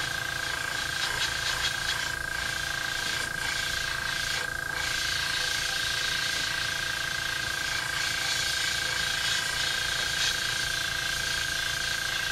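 Iwata airbrush hissing as it sprays light passes of paint onto a lure, in short spurts and then a longer pass, over a steady motor whine.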